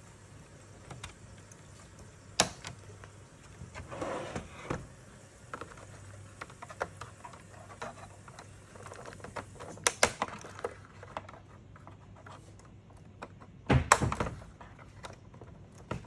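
Plastic snap clips of an HP E202 monitor's front bezel clicking and snapping loose as a pry tool and a flat screwdriver work the bezel off, with plastic scraping and light ticking between. The loudest snaps come as a cluster near the end.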